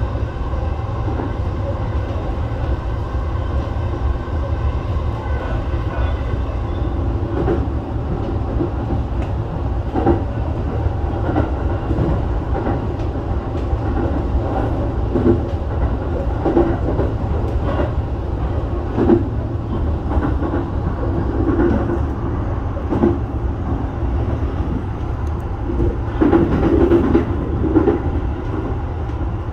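Electric commuter train running at speed, heard from inside the leading car: a steady low rumble with irregular clicks and knocks from the wheels on the rails. The knocking gets louder and busier for a couple of seconds near the end.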